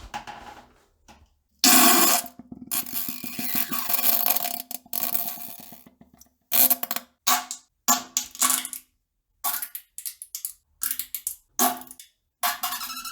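A series of fart sounds: a long, rapidly pulsing one starting about a second and a half in and running for several seconds, then a string of short, separate blasts.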